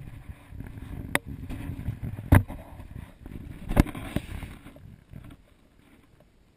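Footsteps and knocking on a wooden bridge deck, heard with rubbing and bumping on a chest-worn camera. There is a low rumble with three sharp knocks, and it dies down about five seconds in as the walking stops.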